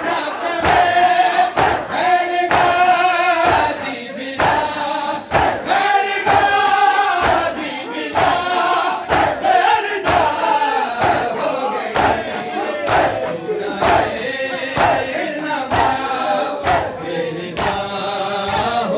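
Mourners beating their chests with open hands in unison (matam), about two strikes a second, while men's voices sing a noha lament over the beat.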